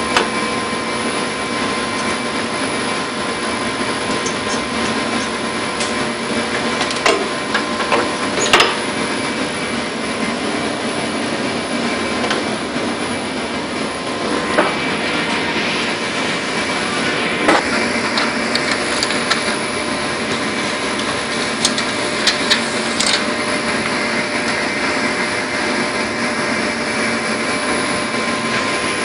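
Steady rushing machine noise with a few constant hum tones running through it, broken by scattered sharp clicks and knocks, the loudest about nine seconds and seventeen seconds in.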